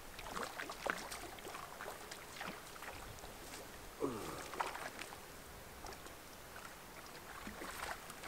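A hooked trout splashing at the surface of the lake as it is drawn in and landed at the shoreline: a run of short, irregular splashes and water slaps, with one larger splash about four seconds in.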